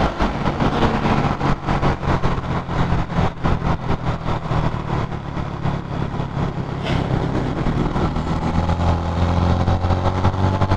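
Honda motorcycle engine running under way, with wind noise buffeting the microphone. About eight and a half seconds in, the engine note drops lower and grows stronger.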